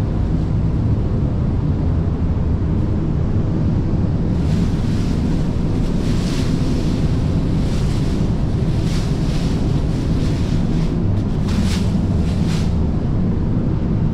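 Paint booth ventilation running with a steady, low rushing noise of air. Plastic masking film on the car crinkles in short bursts now and then as it is handled, a few times in the middle and again near the end.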